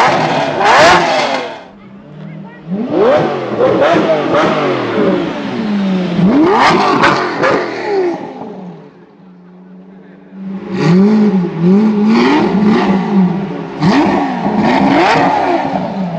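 Lamborghini Murciélago V12 with Liberty Walk LB Performance modifications, revved hard again and again, its pitch rising and falling with each blip. There is a brief lower lull past the middle, then a run of quick rev blips.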